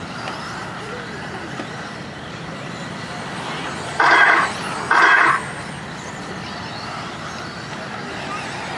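RC buggy race ambience with the faint whir of electric buggies on the dirt track, broken about four seconds in by two loud electronic buzzer tones, each about half a second long and a second apart.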